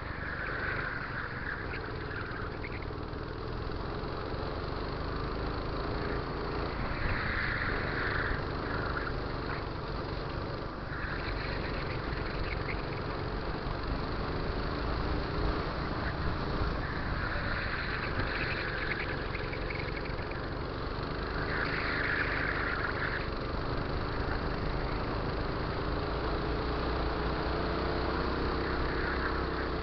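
Go-kart engine running at racing speed, its pitch rising and falling repeatedly with the throttle through the corners, heard from onboard with wind noise on the microphone.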